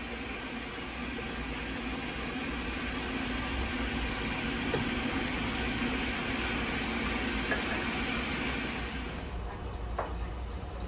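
Steady rushing noise of a large stockpot of chickpeas boiling hard on a gas burner. The noise drops off about nine seconds in.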